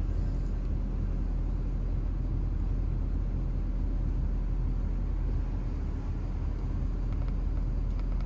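Ford 6.7 L Power Stroke V8 diesel idling steadily, a low, even rumble heard from inside the cab.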